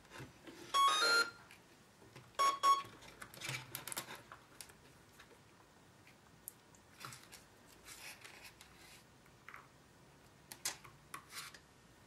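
Brushless motor speed controller's power-up tones: a short rising run of beeps about a second in, then a single beep about a second and a half later. Light clicks and rustles of wires being handled follow.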